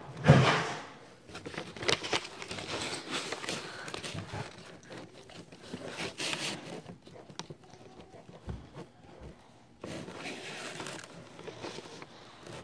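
Sheet of paper rustling and crinkling close to the microphone as it is handled and written on, with scrapes and small knocks. The loudest rustle comes just after the start, and it goes quieter in the second half before another short patch of rustling.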